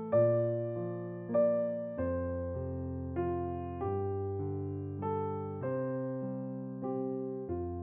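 Background music: a slow, gentle piano or electric piano melody, single notes struck and left to ring over held bass notes.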